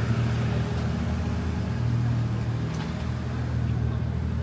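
A motor vehicle's engine running nearby with a steady low hum, over the general noise of street traffic.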